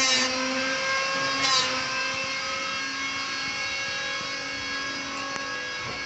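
A steady machine whine holding several pitches at once. Two short rasping bursts come about a second and a half apart near the start.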